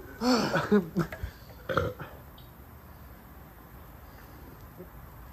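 A man belching: a drawn-out, pitched burp lasting about a second, followed by a shorter one about a second later.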